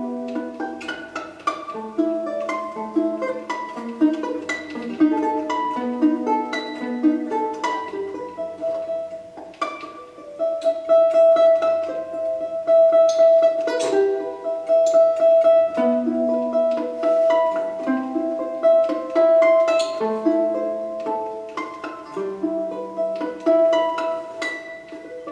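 Solo domra played with a pick: a high note sustained through much of the passage, loudest about halfway through, over a moving lower line of quick plucked notes.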